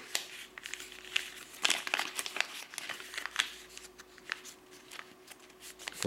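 White printer paper crinkling and crackling in short, irregular rustles as an origami model is pulled and pushed by hand into a new angle, louder about 1.7 and 3.4 seconds in.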